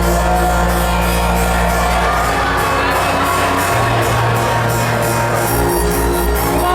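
Loud electronic dance music with a steady beat and sustained bass notes that change about halfway through, with a hint of a crowd shouting.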